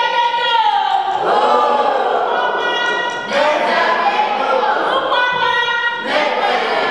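Group of voices singing an Ewe song in chorus, unaccompanied, with long held notes and sliding pitches.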